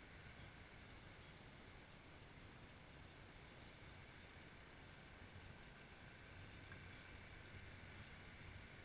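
Near silence: faint steady background hiss and low hum, with a few faint high ticks.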